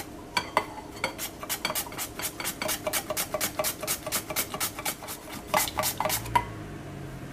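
Peeled potato slid back and forth over a stainless steel mandoline chip slicer, each stroke shaving off a thin slice: a quick, even scraping rhythm of about four strokes a second that stops about six seconds in.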